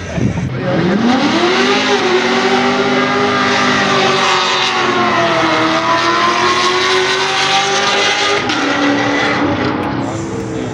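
Drag-race car engine under hard acceleration. Its pitch climbs steeply, then drops and climbs again at a gear change about halfway through, and it eases off slightly near the end.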